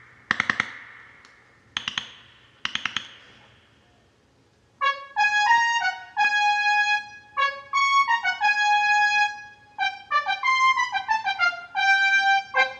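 Synclavier II digital synthesizer music. It opens with three sharp, decaying struck hits, each a quick flurry of strokes. About five seconds in, a trumpet-like synthesized brass melody begins, mixing held notes and quick runs.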